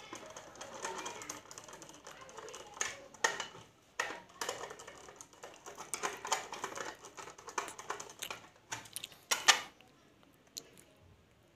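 Irregular clicks, taps and knocks of a fan regulator's casing being handled and opened by hand, with one louder knock about nine seconds in.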